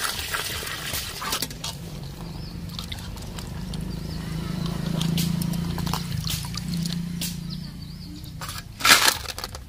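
Hands swishing and rubbing freshwater crabs in a metal wok of water: water sloshing, with small clicks from the shells. A short, louder splash comes near the end.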